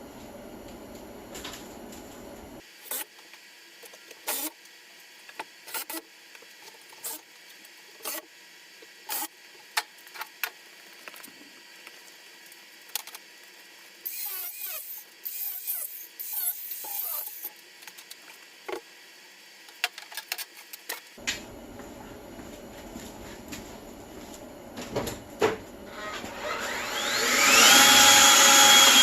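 Scattered knocks and clatter of hand work on wooden shelving, then near the end a power tool's motor winds up into a loud, steady whine.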